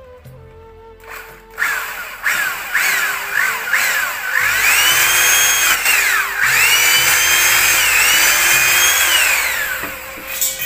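Hilti corded drill boring holes through a wooden plank. It starts with a few short trigger pulls, the motor rising and falling in pitch each time. Two longer runs follow as the bit cuts through the wood, and the drill winds down near the end.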